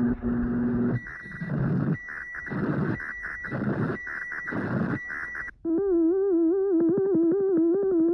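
Emergency Alert System alarm audio. A steady electronic tone cuts off about a second in, followed by four harsh, buzzing data-style header bursts. From about five and a half seconds, a low warbling alarm tone wobbles up and down about three times a second.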